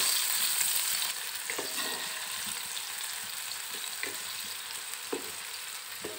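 Sliced onions sizzling in hot oil in a metal pot as they fry toward light golden, stirred with a wooden spatula that knocks against the pot now and then. The sizzle slowly gets quieter.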